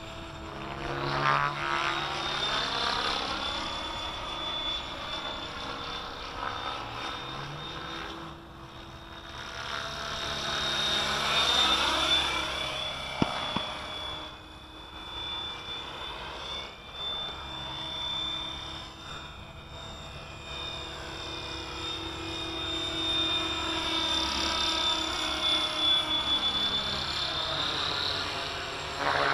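Kasama Dune 600 radio-controlled helicopter in flight: a steady high whine over the rotor noise, swelling and fading as the model moves around the sky. There is one sharp click about halfway through.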